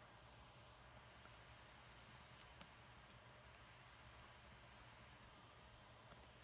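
Faint scratching of a Wacom pen nib stroking across a pen display's screen in short inking strokes, with a couple of light taps of the pen near the middle and end.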